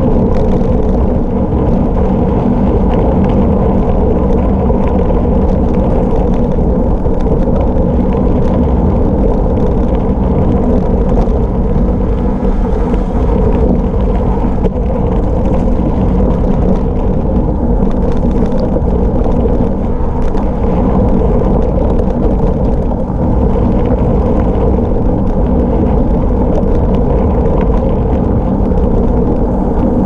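Loud, steady rush of wind on an action camera's microphone, with tyre noise from 700x40C Maxxis Rambler tubeless gravel tyres running fast on a rough gravel road during a downhill.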